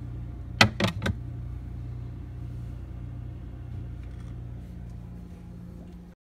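A glass jar set down on a glass refrigerator shelf, clinking three times in quick succession, over the steady low hum of the running refrigerator. The hum stops abruptly near the end.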